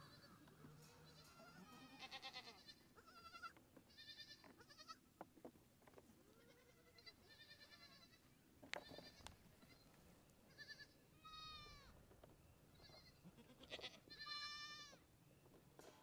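Goat kids bleating again and again in short, high-pitched calls, with one longer bleat near the end. A few sharp knocks come in between, the loudest about halfway through.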